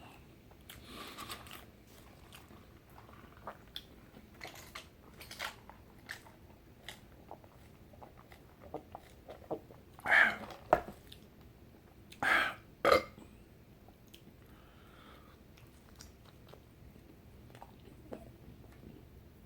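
Close-up chewing and mouth sounds of a person eating a fried chicken sandwich: soft wet clicks and smacks throughout, with a few louder short mouth noises about ten and about twelve to thirteen seconds in.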